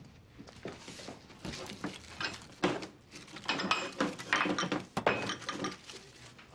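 Plastic wrap rustling and crinkling as raw meat is unwrapped by gloved hands at a steel kitchen counter, with a few light clinks and knocks. The rustling is busiest in the middle of the stretch.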